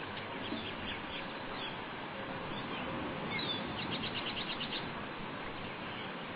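A bird chirping: scattered short high chirps, then a quick run of about nine notes some four seconds in, over a steady hiss.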